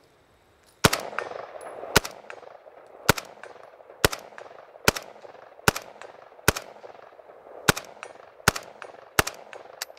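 Bulgarian AKS-74U carbine in 5.45x39, fitted with its booster muzzle device, firing ten single shots at roughly one a second, the first about a second in. Each sharp report trails off in an echo.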